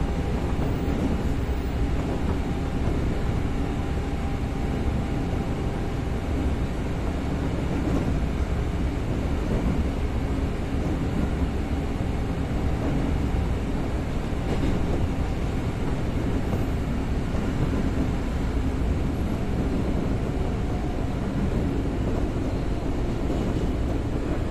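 Interior running noise of an ex-JR 203 series EMU motor car (MoHa 202) at speed: a steady rumble of wheels on rail with motor and gear noise. A faint steady whine fades out about eight seconds in.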